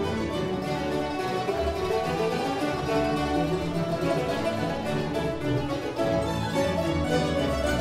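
Mandolin orchestra of mandolins, guitars and double basses playing together in a classical-style piece.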